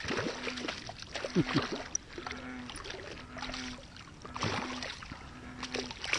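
Water splashing and sloshing in irregular bursts as a hooked catfish thrashes at the surface while being landed. A short low hum repeats about once a second behind it.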